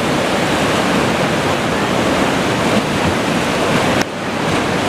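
Whitewater river rapids rushing steadily and loudly, with an abrupt brief dip in level about four seconds in.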